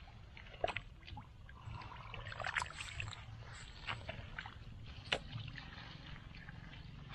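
Scattered small splashes and trickling of shallow water, as hands work through it, with short sharp sounds every second or so over a low steady rumble.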